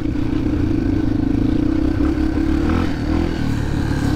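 Yamaha TT-R230 dirt bike's single-cylinder four-stroke engine running under way at fairly steady revs, the note wavering a little about three seconds in. It is heard from a microphone inside the rider's helmet.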